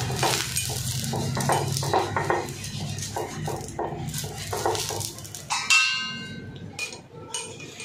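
Pastry brush spreading oil across a hot non-stick tawa in quick, repeated strokes, a little over two a second. About five and a half seconds in, a metal utensil gives a ringing clink, followed by a couple of light knocks.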